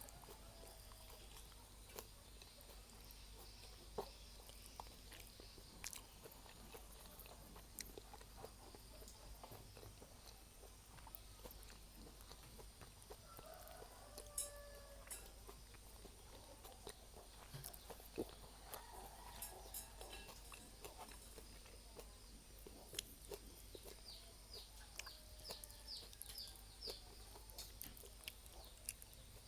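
Quiet eating: chewing with frequent small sharp mouth and utensil clicks. Faint bird calls sound in the background, with a quick run of high chirps near the end.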